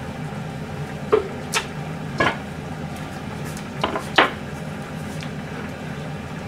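A wooden cutting board handled on a stainless steel counter: about five sharp knocks and clatters between one and four seconds in, the loudest near the start and near the end, over a steady low hum.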